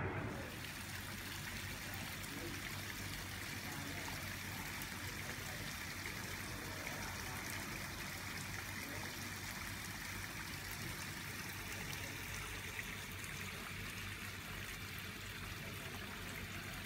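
Water running steadily at a swimming pool, as from a water feature or overflow: an even, unbroken rush and trickle.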